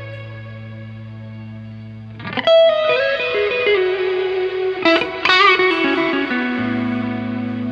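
Solo Stratocaster-style electric guitar: a low chord rings, then a little over two seconds in a loud lead lick starts, its notes stepping down in pitch with a wavering vibrato on a held high note, before it settles back onto a ringing low note near the end.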